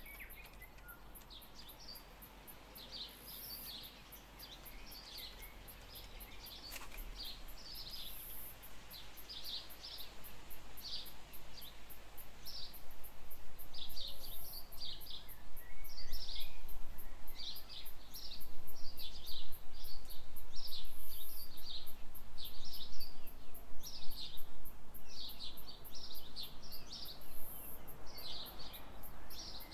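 Small birds in the surrounding bush chirping in short, repeated clusters of high notes, growing louder partway through. A faint, very high, evenly paced ticking runs underneath.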